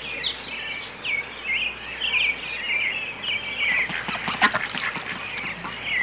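Mallard ducklings peeping in a rapid run of short high calls, with a few louder, harsher calls about four to five seconds in.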